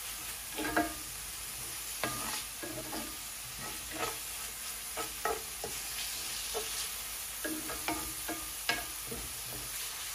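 Wooden spoon stirring and scraping diced onions, bell peppers and green seasoning around a cast-iron skillet, with short irregular scrapes over a steady low sizzle of the vegetables frying in oil.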